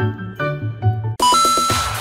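Background music: a light tune of short bell-like notes over a bass line. About a second in it breaks into a held high tone over a fuller, noisier sound.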